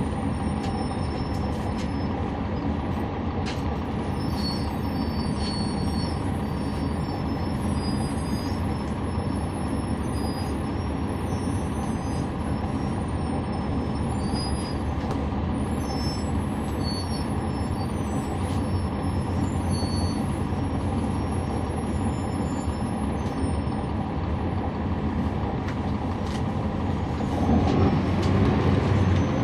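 Cabin sound of a NABI 40-SFW transit bus under way, its Cummins ISL9 inline-six diesel running with steady low engine and road noise, heard from on board. Faint high-pitched squeaks come and go, and the sound grows louder near the end.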